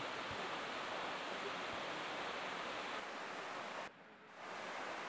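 Steady rushing of a small woodland waterfall and creek cascade pouring over rock. The sound briefly drops away about four seconds in and then comes back.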